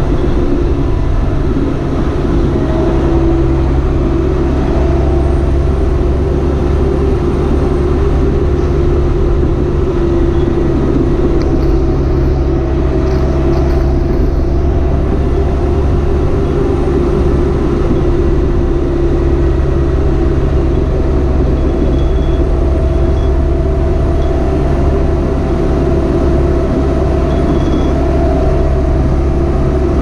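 Large farm tractor's diesel engine running steadily under load while pulling a grain cart, heard close up from the hood, a constant low drone with a steady hum over it.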